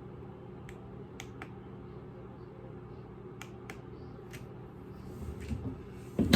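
Revair reverse-air hair dryer running with a steady low hum. Scattered light clicks come through it, and there is a louder knock near the end.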